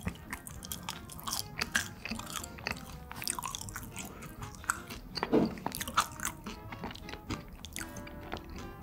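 Close-miked chewing and biting of french fries dipped in cheese sauce: many short, wet mouth clicks and soft crunches, over quiet background music.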